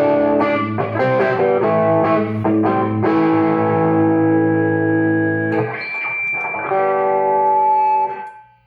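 Electric guitar played through a converted Hammond AO-43 organ amplifier with the gain up, giving a gnarly distorted tone. A run of struck chords, then held chords that ring out and die away near the end, leaving a faint low hum from the amp.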